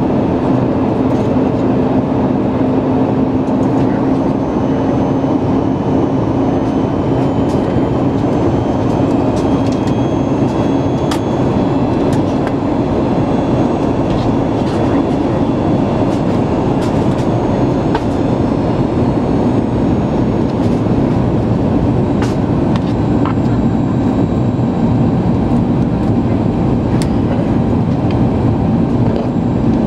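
Steady cabin roar inside a Boeing 737 MAX 8 in flight on approach: engine and airflow noise with a steady low hum and a few faint ticks scattered through it.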